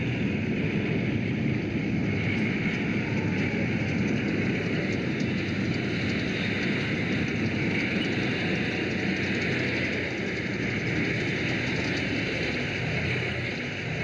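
Sherman tank rolling slowly, its engine and tracks making a steady, heavy rumbling clatter.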